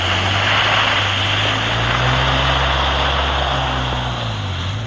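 Ford F-150 pickup's engine pulling under throttle as the truck drives away through mud and standing water, wheels throwing mud, over a steady hiss. The engine pitch rises a little mid-way, then eases and fades slightly near the end as the truck draws off.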